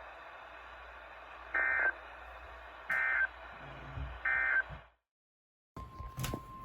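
Emergency Alert System end-of-message data bursts on weather radio: three short, buzzy warbling chirps about 1.3 s apart over steady radio hiss, marking the close of the warning. The audio then cuts out for about a second and comes back with clicks and a steady high tone that starts near the end.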